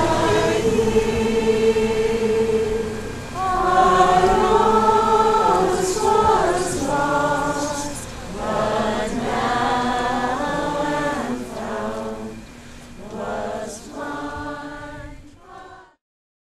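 A crowd of people singing together in long held notes. The singing fades and cuts off just before the end.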